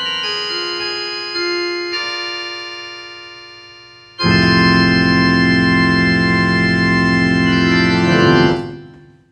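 Organ music: held notes fade away, then a loud full chord comes in about four seconds in and is held. Near the end it slides down in pitch and dies out, the closing chord of the track.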